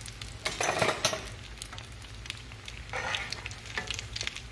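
Metal spatula scraping and clinking against a cast-iron skillet twice, about half a second in and again around three seconds, as fried pies are turned. Underneath, the shallow frying grease sizzles with small pops.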